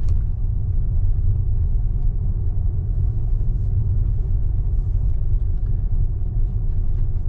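Steady low road and tyre rumble inside a moving Tesla's cabin.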